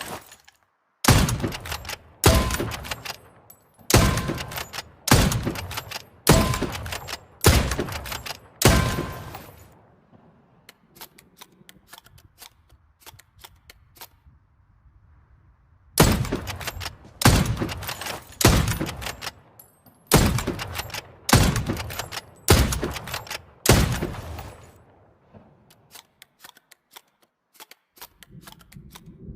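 Hunting rifle shots fired in two runs of about seven or eight, roughly one shot a second, each ringing out briefly before the next. Between the two runs there are only faint scattered clicks, and a few more come near the end.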